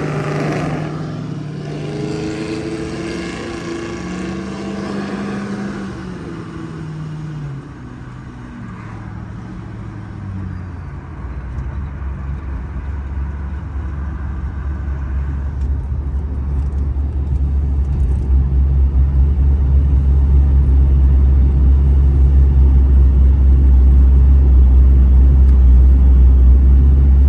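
V8 sedan engine revving, its pitch rising and falling over the first several seconds, then settling into a loud, steady low rumble that builds from about eleven seconds in and holds.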